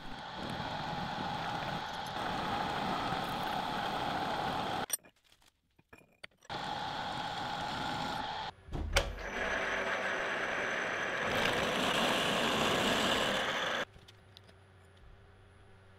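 A twist drill bit boring into steel, cutting steadily in spells with short breaks between them and a brief thump about nine seconds in. It stops near the end, leaving a low steady hum.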